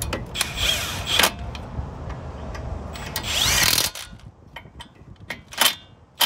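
Kobalt cordless impact wrench run in short bursts, spinning down the brake caliper bolts: two longer runs about a second and three seconds in, the motor's pitch gliding in the second, then brief blips near the end.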